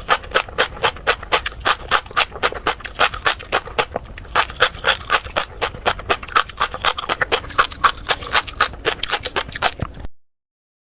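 Close-miked chewing of crunchy tobiko (flying fish roe): a rapid, even run of crisp popping clicks, several a second, that cuts off suddenly about ten seconds in.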